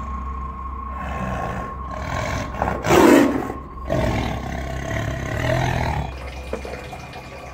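Tigers growling and roaring as two of them fight, starting about a second in. The loudest roar comes about three seconds in, and the sound dies away near the end.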